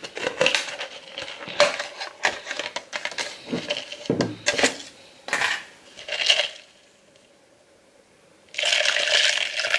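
Clicks and knocks of a glass beer bottle and a paper cup being handled. After a short pause, near the end, beer starts pouring from the bottle into the paper cup with a steady splashing hiss.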